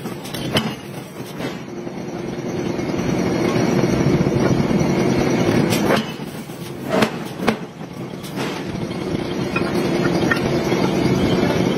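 Heavy forging machinery running with a steady drone as a hot steel bearing-ring blank is forged. It swells over the first few seconds, with a few sharp metal clangs and knocks around six to eight seconds in.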